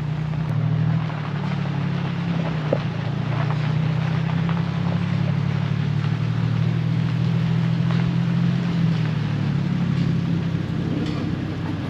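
Engine of a small pickup-based passenger truck running steadily as it drives along a gravel road, with a continuous low drone and road noise.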